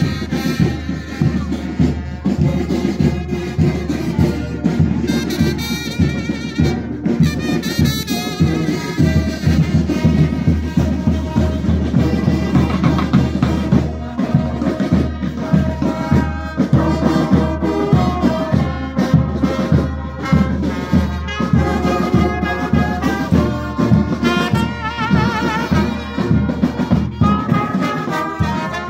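Marching brass band playing a tune: trumpets, euphoniums and tubas over a steady drum beat.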